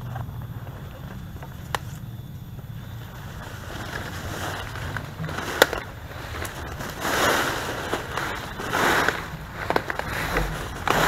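Rustling of leafy undergrowth and dry leaf litter as someone pushes through on foot, in several uneven bursts, louder in the second half, with a couple of sharp clicks.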